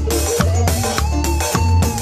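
Live band playing a song with a drum kit keeping a steady beat of about two hits a second, under bass and a held melodic line.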